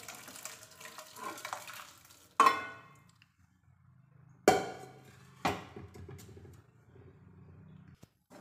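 Boiled black-eyed peas and their cooking water poured from a pressure cooker into a steel kadhai, a wet splashing pour for the first two seconds. Then three sharp metal clanks with a short ring, a second or two apart, as the metal pots and utensils knock together.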